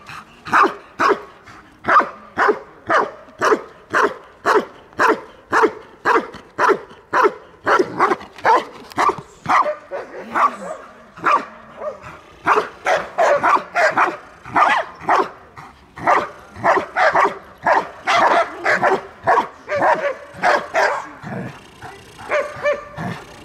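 Belgian Malinois barking in a steady run of sharp barks, about two a second, at a helper holding a bite sleeve during protection training; the barks thin out and get quieter near the end.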